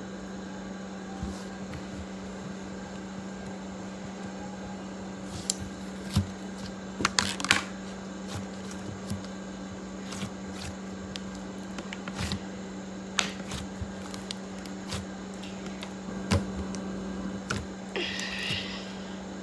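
Thick slime being squeezed and worked by hand, giving scattered small sticky clicks and pops over a steady low hum.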